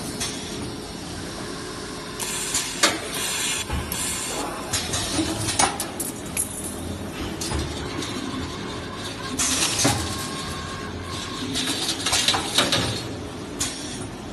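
CNC wire bending and TIG butt welding machine working stainless steel wire: stretches of hissing, mixed with irregular sharp clicks and metallic clinks.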